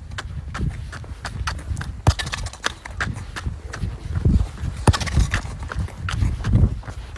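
Quick irregular taps of a football against boots and shoes scuffing and stepping on tarmac as the ball is dribbled, over a low rumble.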